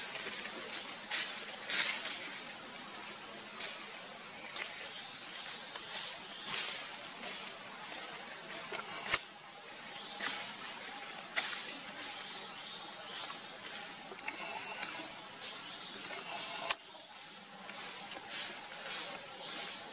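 Insects shrilling in a steady, high-pitched drone, with faint ticks and rustles and two sharp clicks, about halfway through and near the end.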